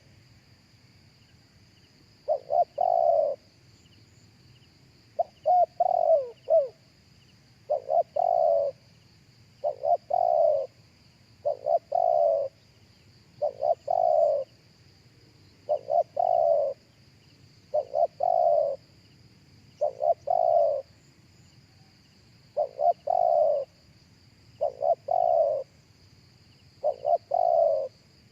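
Spotted dove cooing: a repeated call phrase about every two seconds, each a couple of short notes running into a longer coo.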